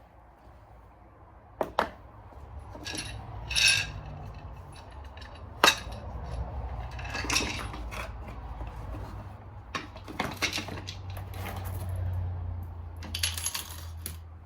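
Metal engine parts clinking and clattering as they are handled and set down: several sharp clicks and a few short, ringing metallic clinks from the Suzuki LTR450's clutch components.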